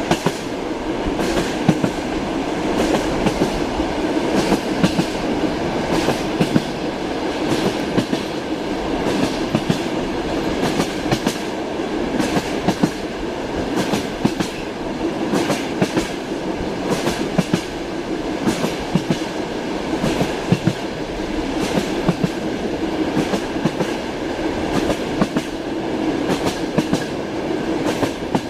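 Train wheels clacking over rail joints in a repeated irregular rhythm, over the steady rumble of a moving railway carriage.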